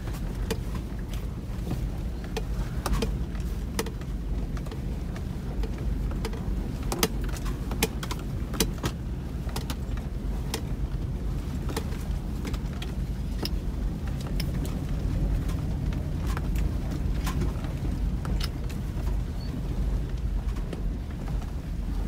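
Cabin sound of a Toyota Land Cruiser 100 V8 rolling slowly down a rocky dirt track: a steady low engine and drivetrain rumble, with frequent sharp clicks and knocks as the tyres go over loose stones and the body rattles.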